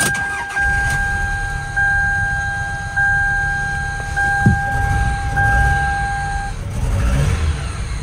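A 1999 Toyota Camry's 2.2-litre four-cylinder engine starts and idles roughly: it is still misfiring on a cylinder after new spark plug wires were fitted. For the first six seconds or so a dashboard warning chime repeats about once a second over the engine.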